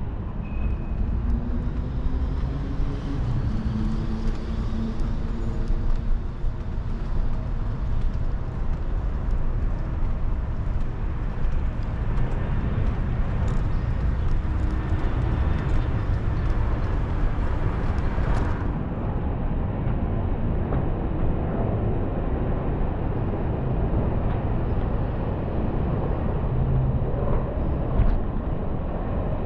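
Steady low rumble of wind on the microphone and wheels rolling over pavement during a ride through city streets. A faint whine glides up and down in pitch a few seconds in.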